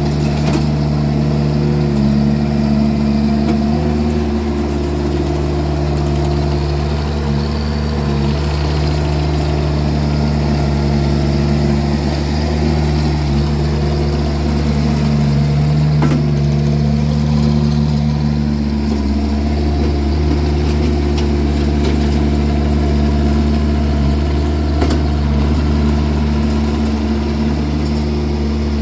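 Vermeer mini skid steer's engine running steadily while the machine pushes snow with a snow box, its speed dipping briefly a couple of times under load.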